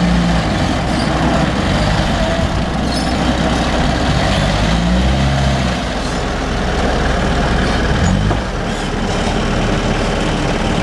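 Backhoe engine running steadily, its pitch rising and dipping a couple of times as the machine works.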